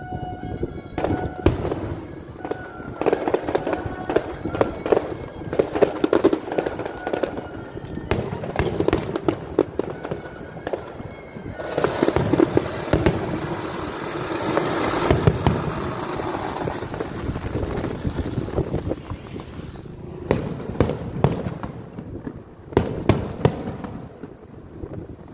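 Aerial fireworks going off: a rapid string of sharp bangs and crackles, with a denser run of continuous crackling in the middle.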